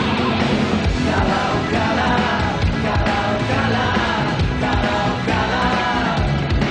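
Live rock song: a man singing over a full band with a steady beat.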